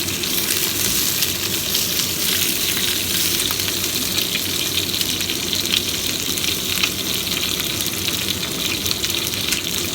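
Food frying in hot oil in a pan: a steady crackling sizzle with small scattered pops.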